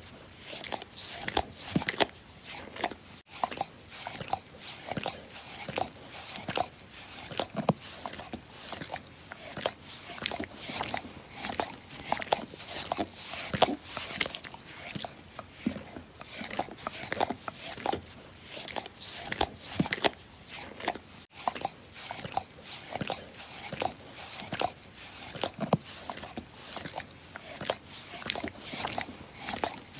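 A dog licking, with wet smacking and slurping clicks coming several times a second in an uneven rhythm.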